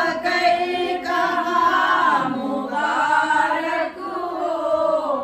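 A group of women singing a devotional recitation together without instruments, in long held notes that glide from one pitch to the next.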